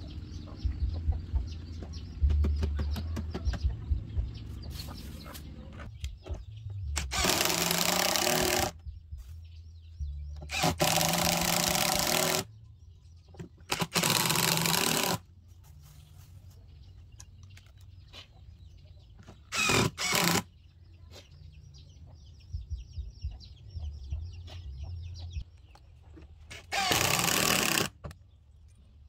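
Handheld power drill running in about five bursts of one to two seconds as it bores into the hardwood frame of a sofa. Before that come wooden knocks and bumps as the backrest is handled, with chickens clucking in the background.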